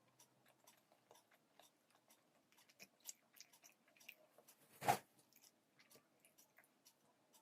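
Faint close-up chewing of poha (flattened rice), with many small mouth clicks and one louder thump about five seconds in.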